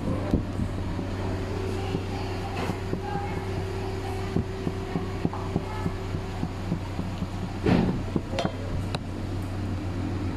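A steady low mechanical hum, like a fan or small motor running. A higher steady tone in it stops a little past halfway. Scattered light knocks run through it, with a louder knock about three-quarters of the way through.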